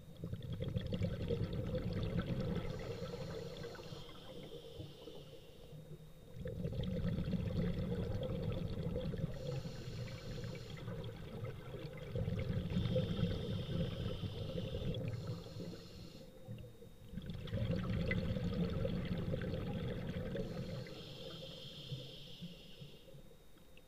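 Scuba diver's breathing heard underwater: bubbling, gurgling exhalations through the regulator that swell and fade four times, about every five to six seconds.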